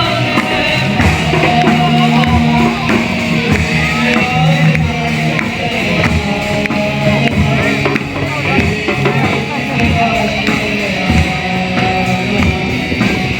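Loud music with a drum beat and held bass notes.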